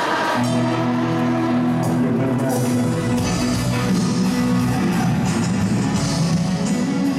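Rock music with guitar and drums, playing steadily.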